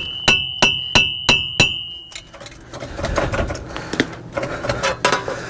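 Five quick hammer taps with a metallic ring, about three a second, on a Ford F350's front wheel hub assembly to loosen it from the steering knuckle. From about two seconds in they give way to scraping and light metal clinks as a screwdriver pries at the hub.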